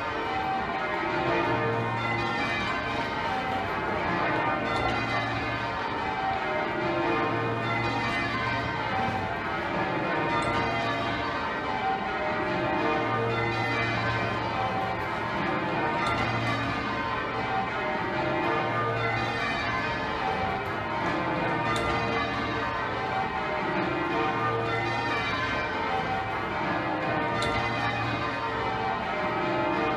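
Change ringing on the ring of twelve bells at Exeter Cathedral, tenor about 72 cwt. The bells strike in rows one after another, each row stepping down in pitch to the deep tenor, which sounds about every two and a half seconds.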